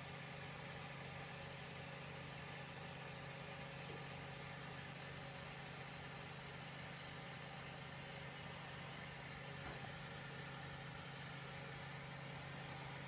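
Faint, steady low machine hum with an even hiss, unchanging throughout.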